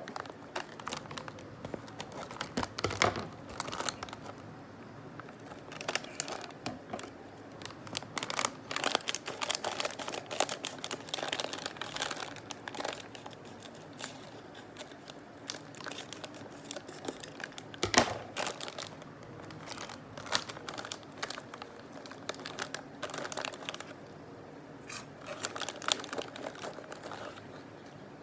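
Plastic snack packet of onion-flavoured star-shaped puffs crinkling and crackling as it is handled and opened, in bursts with short pauses, with one sharp snap about eighteen seconds in.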